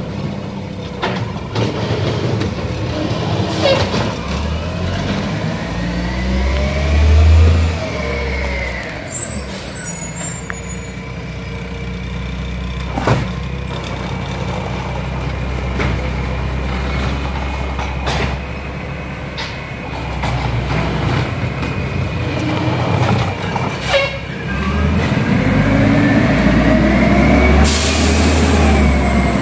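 Garbage truck at work: its diesel engine running and revving, with whines that rise and fall as the truck's machinery works. A few sharp knocks, and a hiss of air near the end like an air brake releasing.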